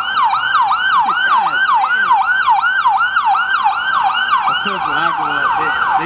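Ambulance siren in its fast yelp, a sweeping wail repeating about four times a second without a break.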